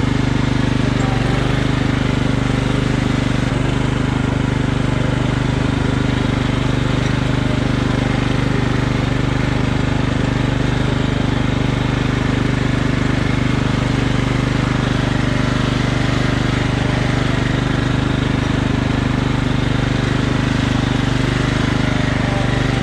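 Riding lawn mower's small engine running at a steady, even speed as the mower is driven along a muddy trail.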